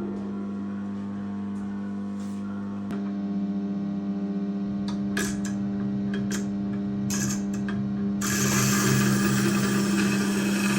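Güde wet-stone grinder running with a steady motor hum, a few light clicks partway through. About eight seconds in, a broad rasping noise joins as a blade is ground on the stone.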